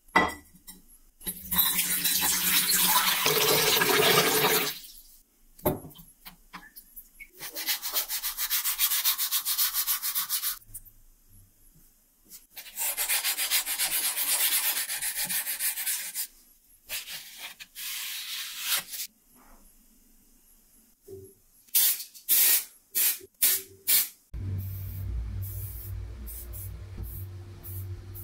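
A small metal part being wet-sanded by hand on wet abrasive paper, with fast back-and-forth strokes in three long passes. Near the end come a few short bursts, then a steady low hum.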